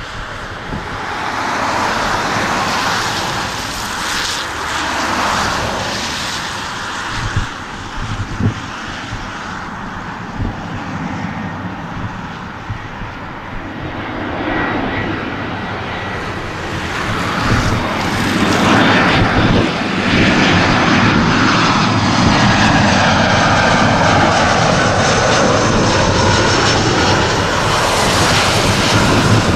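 Jet engines of an Airbus A320-family airliner on final approach with its gear down, growing louder as it nears and loudest in the last ten seconds, with an engine whine falling in pitch as it passes.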